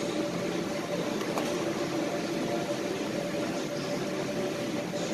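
A claw crane machine running as its claw is lowered into the pile of ticket rolls: a steady mechanical hum with a faint even whine running through it.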